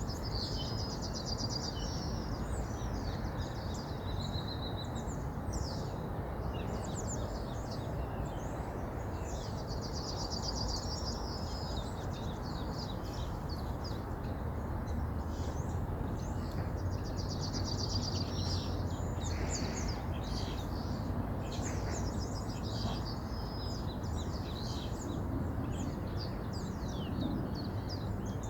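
A river flowing steadily, with songbirds singing over it: one repeats a rapid trilled phrase every several seconds among scattered chirps.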